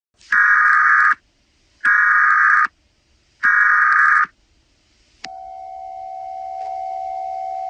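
Emergency Alert System SAME header: three short bursts of buzzing digital data tones, about a second apart. A steady electronic alert tone then starts about five seconds in and slowly grows a little louder.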